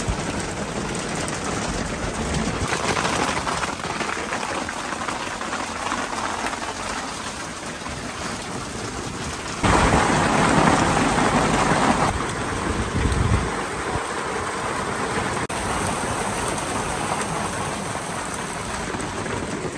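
Steady heavy rain falling on and around the camper's awning, heavier for a couple of seconds about ten seconds in, with thunder rumbling.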